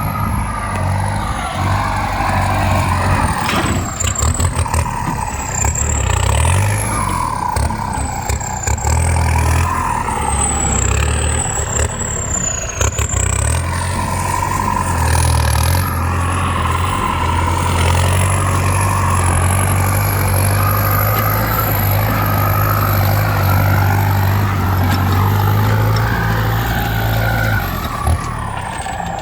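Kubota M9540 tractor's four-cylinder diesel engine working under load while pulling a plough, its low drone dipping and building several times, with a high whine rising and falling above it.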